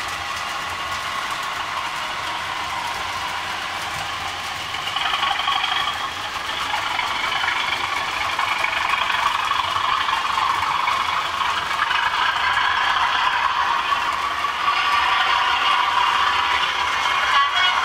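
Model freight train's wagon wheels running and clattering over the track and pointwork. The rattle gets louder about five seconds in and again near the end as the wagons pass closer.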